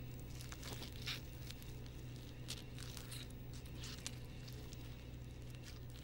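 Faint, irregular crackling and rustling of dry leaf litter as a South African tiger snake works a striped skink into its mouth, over a low steady hum.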